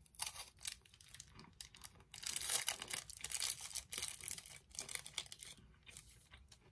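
Biting and chewing a Violet Crumble honeycomb chocolate bar: crisp crunching of the hard honeycomb in several bursts, mixed with crinkling of its wrapper.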